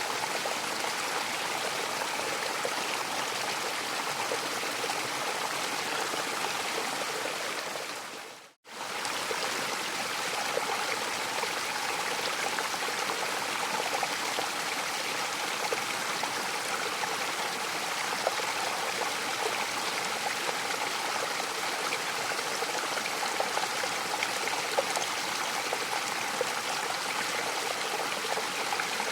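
Mountain waterfall: water rushing and splashing in a steady hiss. About eight seconds in, the sound fades briefly to silence and comes straight back, like a splice in a looped recording.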